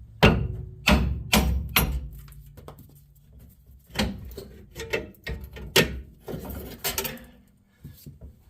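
Irregular metal knocks and clanks from hand tools working loose the parts of a truck's rear leaf spring and axle mount: four hard knocks in the first two seconds, then a run of lighter knocks.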